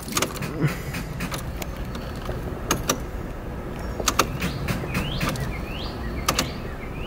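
Ignition key being turned in a Mazda with a flat battery: irregular sharp clicks, and the engine does not crank. A few short rising chirps come in about five seconds in and again near the end.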